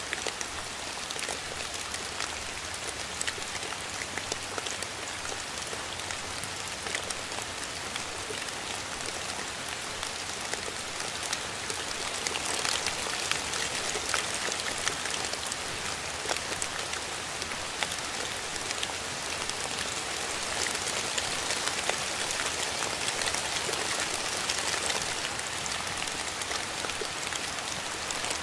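Steady rain with many separate drops pattering on a surface. It grows a little heavier for a stretch through the middle.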